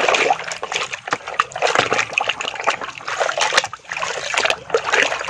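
Water splashing and sloshing irregularly as a muddy toy vehicle is washed by hand.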